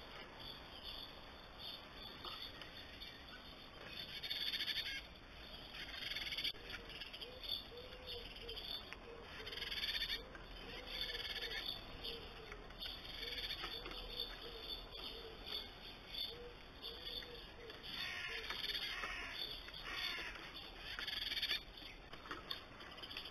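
Blue tits giving repeated harsh alarm calls in irregular bursts: agitated parent birds scolding a predator at their nest box. A faint low note repeats steadily in the background for several seconds in the middle.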